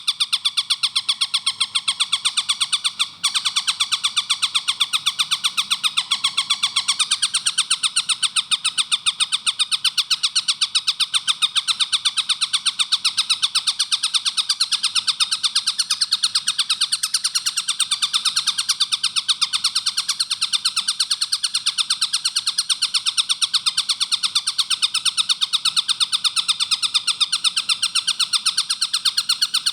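Tengkek buto kingfisher calling in a fast, tightly packed string of short repeated high notes. The call runs continuously apart from a very short break about three seconds in.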